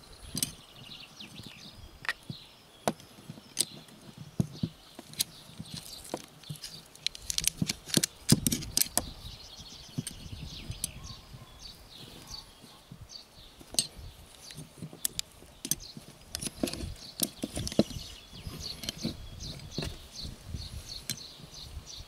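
Aluminium rope pulleys and carabiners clicking and clinking against each other and on a wooden board while a rope is threaded through them by hand. The sharp clicks come in scattered clusters, thickest about eight seconds in.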